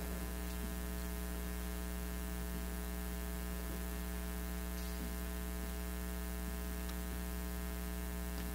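Steady electrical mains hum, a low buzz with a dense stack of overtones that holds unchanged throughout. A few faint soft knocks and rustles sit under it.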